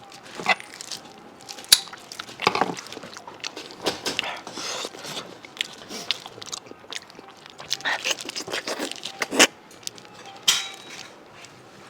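A person eating close to the microphone: scattered bites and chews, with short clicks and crunchy mouth noises.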